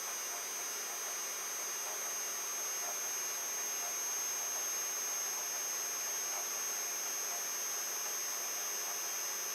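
Protomaker 3D printer running while homing its axes: a steady high-pitched whine over an even machine hum.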